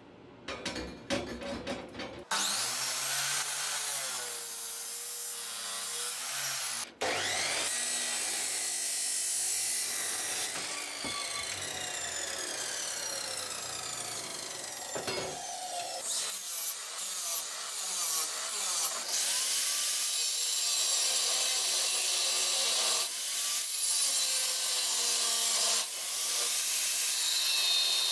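A few metal clanks of steel square tubing handled on a steel welding table, then about two seconds in an abrasive chop saw cutting steel tube, its pitch rising and falling. In the second half an angle grinder with a cutting disc cuts steel sheet, a steadier, continuous grinding.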